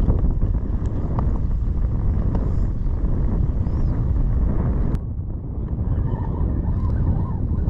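Boat under way: a steady low rumble of motor and water, with heavy wind noise on the microphone. About five seconds in, the higher hiss drops away abruptly.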